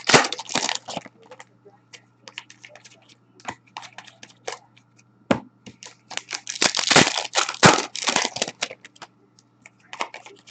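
Hockey card foil packs being torn open and their wrappers crinkled while cards are handled: runs of sharp crackling and rustling, densest about a second in and again around seven to eight seconds in, over a faint low hum.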